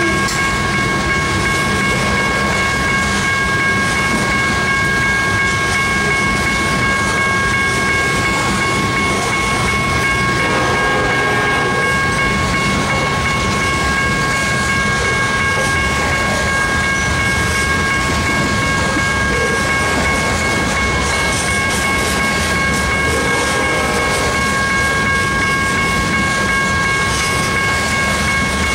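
Coal train hopper cars rolling steadily past on the rails, a continuous rumble with wheel clatter, over a steady high ringing of several tones.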